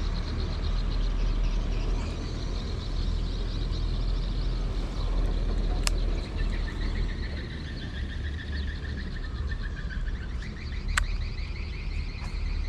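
Wind rumbling on the microphone over a high, rapidly pulsing outdoor chorus, with two sharp clicks about five seconds apart.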